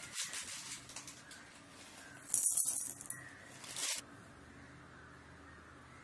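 Whole black peppercorns rattling against a steel mixer-grinder jar in a few short bursts, the loudest about two and a half seconds in.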